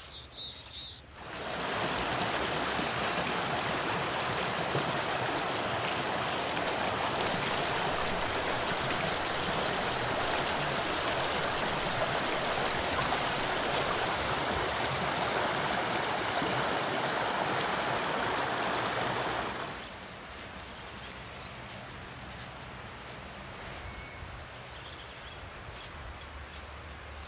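Rocky mountain creek rushing and splashing, a steady loud hiss of water. About twenty seconds in it cuts off abruptly, leaving a much quieter outdoor hush.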